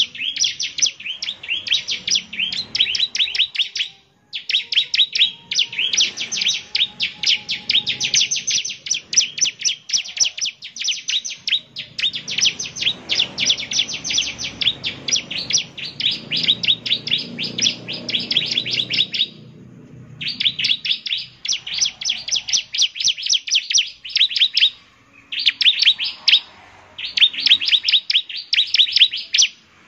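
Bar-winged prinia (ciblek) singing in long, rapid trills of sharp, high chirping notes, breaking off briefly a few times.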